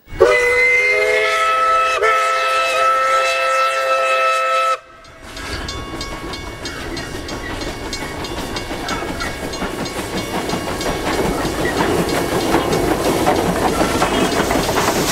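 Steam locomotive whistle blowing, several steady pitches sounding together, for about four and a half seconds with a brief dip near two seconds, then cut off sharply. Then the steam train approaches and runs past, its wheels clicking over the rail joints and the noise growing louder.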